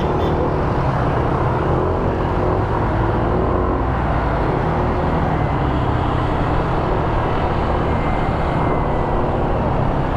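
Motor scooter running steadily under way, with continuous road and riding noise.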